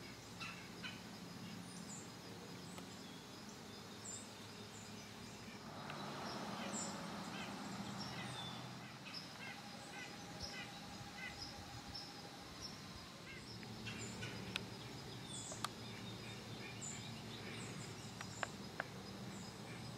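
Woodland ambience: scattered bird calls and short chirps, with a run of quick repeated calls in the middle, over a steady low hum. A few light clicks or ticks come in the second half.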